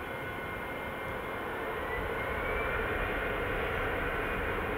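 Airbus A320-214's CFM56 jet engines at takeoff thrust as the airliner accelerates down the runway: a steady rush of jet noise with a thin high whine that rises in pitch about two seconds in, the whole growing louder from there.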